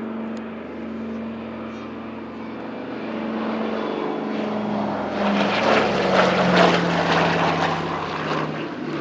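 Douglas C-47 Skytrain's twin Pratt & Whitney R-1830 radial engines on a low pass. The engine drone grows louder, and a little past halfway its note drops in pitch as the plane goes by, loudest just after.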